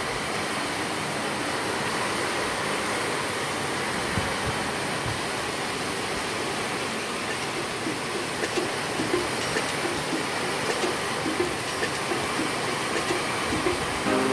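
Heavy rain pouring down in strong, gusting wind: a steady rushing hiss, with scattered small taps in the second half.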